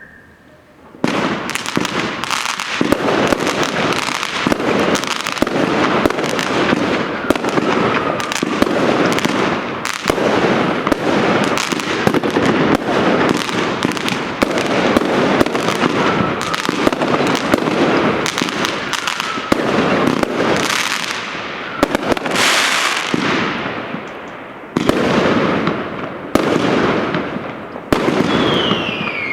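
Consumer fireworks batteries firing: a dense, rapid string of bangs and crackles that starts about a second in and keeps going, with a few whistles falling in pitch in the later part.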